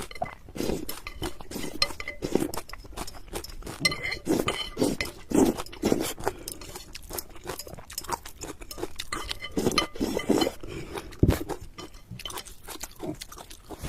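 Close-up eating sounds: utensils clinking and scraping against a bowl or plate in irregular clicks, mixed with chewing of noodles and chicken.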